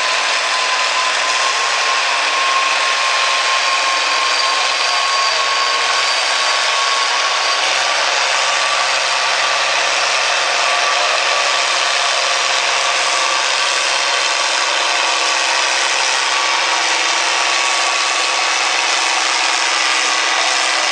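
International Harvester farm stock diesel tractor at full throttle under heavy load, pulling a weight-transfer sled. The engine noise is loud and steady, with a thin high whistle held over it.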